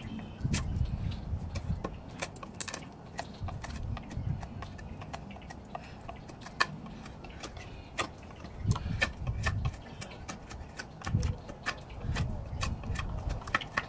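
Mora Companion Heavy Duty MG knife whittling wood: irregular sharp clicks and ticks as the blade bites into and shears off the wood, over a low rumble that comes and goes.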